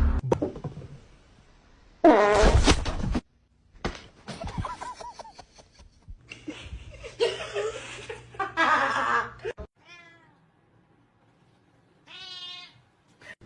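Cat meowing in several separate short calls with gaps between; the last two calls pulse rapidly.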